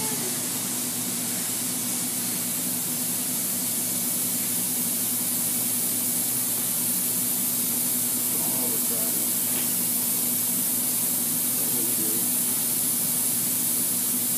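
Northwood NW 58 CNC router running: a steady hiss over a low hum.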